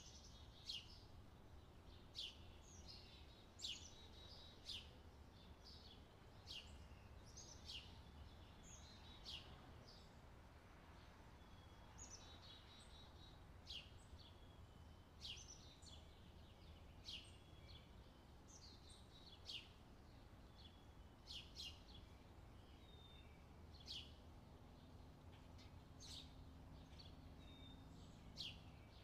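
Faint chirping of small birds: short, sharp, downward chirps repeated every second or so, over a low steady hum.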